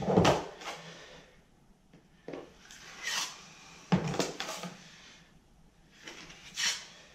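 Drywall knife scraping joint compound in a metal mud pan and knocking against the pan, then spreading mud on the damaged drywall: a handful of separate short scrapes and knocks about a second apart.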